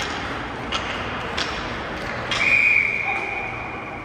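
Ice hockey referee's whistle: one long steady blast of under two seconds, starting a little past halfway, loud at first and trailing off, over arena noise. A few sharp knocks come before it.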